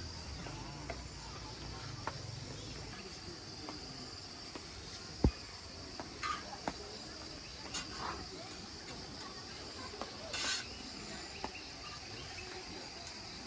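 Steady high-pitched chorus of insects (crickets or cicadas), with a few scattered clicks and one sharp knock about five seconds in.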